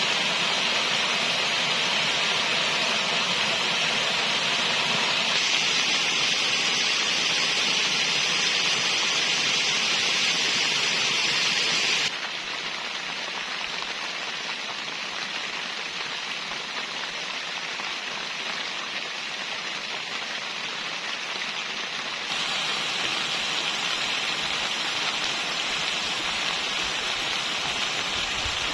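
Steady rain falling, an even hiss of drops. It suddenly gets quieter about twelve seconds in and just as suddenly louder again about ten seconds later.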